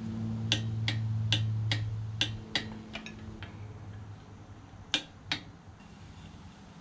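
Harbor Freight click-type torque wrench clicking as the cylinder head nuts are brought to final torque. There is a run of seven evenly spaced sharp clicks, about two and a half a second, then two more close together about five seconds in, over a low hum that fades out about three seconds in.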